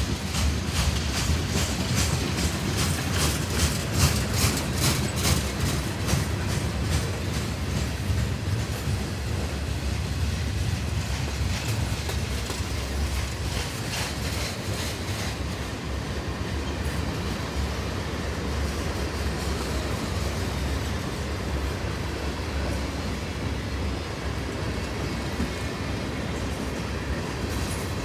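CSX freight train rolling past, its cars' wheels clicking rapidly over rail joints, then settling into a steady rumble of wheels on rail.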